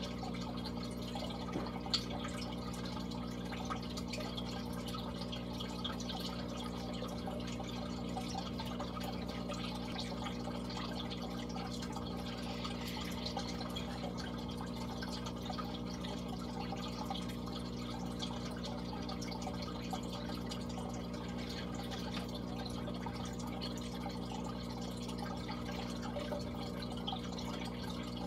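Aquarium filter and aeration running: water trickles and bubbles steadily over the low, steady hum of the pump. One sharp click about two seconds in.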